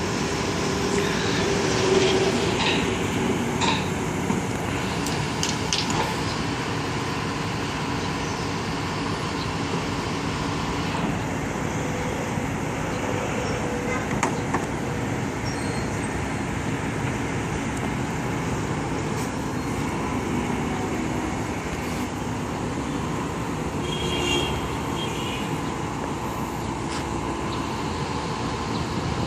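Crane truck's diesel engine running steadily, with a few sharp knocks and clanks in the first few seconds.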